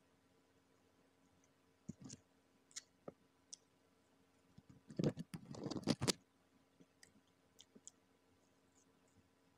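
Close-up eating sounds of fried chicken: scattered wet mouth clicks and smacks, with a louder cluster of smacking and chewing for about a second, about five seconds in.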